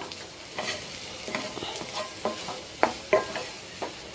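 Wooden spatula stirring and scraping thick potato masala around a nonstick kadai, with a light sizzle of frying underneath. Scattered sharp taps of the spatula against the pan.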